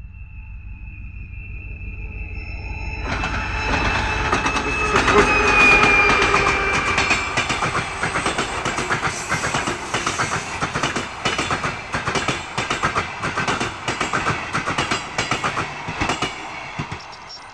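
TEP70 diesel locomotive approaching and passing, loudest about five seconds in, with a high steady whine. Its passenger coaches then roll past with rapid clicking of wheels over rail joints, fading near the end.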